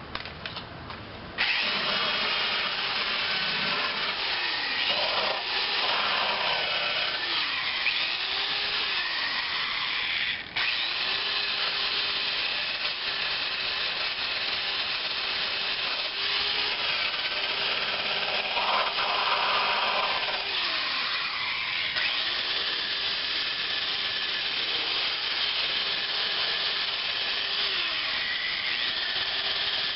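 Electric drill spinning a rotary attachment against a rusted steel body panel, grinding off paint and rust. It starts about a second and a half in and stops briefly near the ten-second mark. Its motor pitch repeatedly sags and recovers as it is pressed into the metal.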